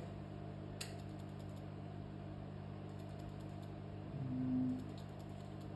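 Steady low electrical hum, with a single sharp click about a second in and a brief louder low tone a little past four seconds.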